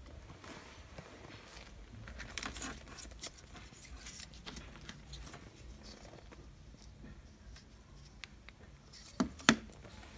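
Faint rustling and tapping of hands handling a TV's plastic control-button board, with two sharp clicks in quick succession near the end.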